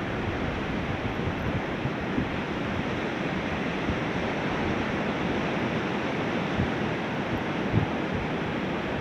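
Ocean surf washing steadily, with wind buffeting the microphone in low rumbling gusts and a few brief thumps.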